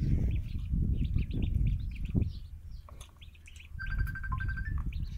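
Ducklings peeping: many short, rapid, high chirps over a low rumble.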